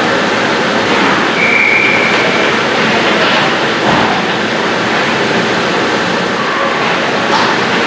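Steady rushing noise of an ice hockey rink, with a referee's whistle blown once and held for about a second, about a second and a half in.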